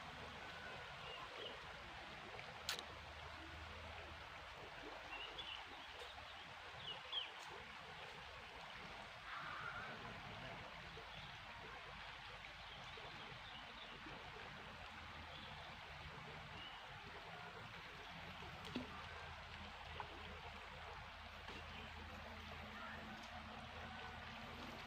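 Faint, steady running water, with a few soft clicks.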